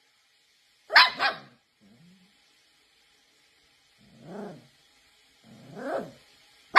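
Puppy giving a sharp double yap about a second in, then two softer drawn-out whines that rise and fall in pitch.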